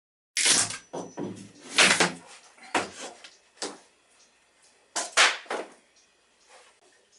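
Irregular knocks, bangs and clatter of wooden boards and shelving being handled and taken down, loudest in clusters in the first half, then fading to a few light taps.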